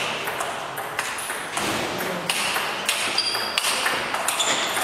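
Table tennis rally: the celluloid ball clicks sharply off the rackets and the table in a quick run of strokes, over the murmur of a sports hall.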